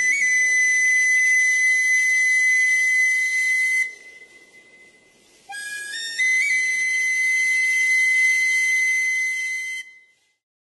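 Two long, shrill whistle blasts with a short gap between them. Each starts a little lower, steps up in pitch and then holds one high tone for about four seconds before cutting off. A faint rushing noise lies underneath.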